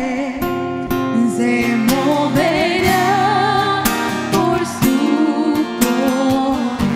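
Female vocals singing a slow Christian worship song with vibrato, over instrumental accompaniment.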